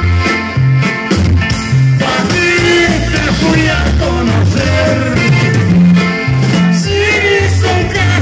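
Live norteño band music: a button accordion leads over stepping bass notes, guitar and drums at a steady beat. About two seconds in, a man's voice starts singing with vibrato over the band.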